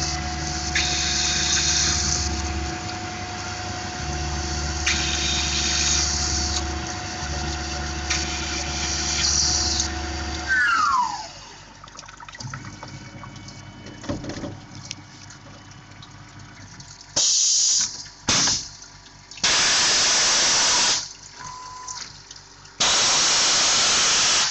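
Spindle of a Tormach PCNC 1100 CNC mill running with a steady whine while drilling aluminium, mixed with repeated hissing. About ten seconds in, the spindle winds down with a falling whine. Later come a few clicks and three loud hissing blasts lasting a second or more each.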